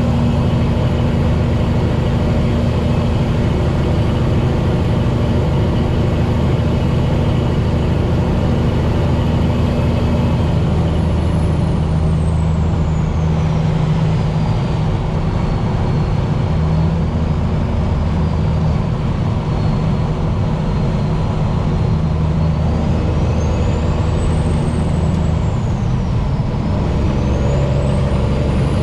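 Cummins ISX diesel engine of a loaded cattle truck running steadily under load at highway speed. Its note drops about ten seconds in and changes again a couple of times later.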